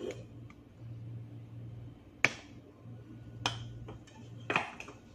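Three sharp clicks and knocks, about a second apart, from kitchen things being handled, the first the loudest and the last a quick double, over a low hum that comes and goes.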